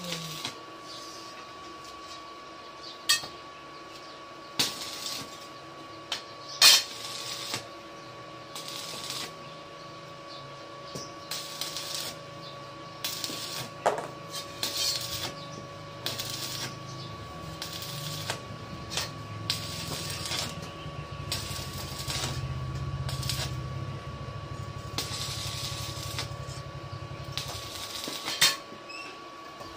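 Stick (arc) welding on steel fence rails: the arc crackles and sizzles in short irregular runs, with a few sharp metallic clicks standing out as the loudest sounds. A low drone joins from about twelve seconds in and stops near the end.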